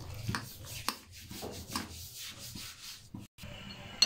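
A metal spoon beating thick ground mash (urad) dal batter in a glass bowl, in repeated scraping strokes a few times a second. The batter is whipped so it turns light and airy. A sharp click near the end.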